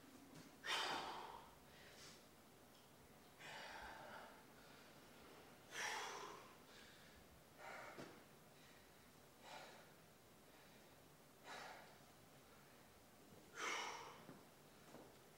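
A weightlifter breathing hard during a set: forceful breaths, about one every two seconds, some much louder than others.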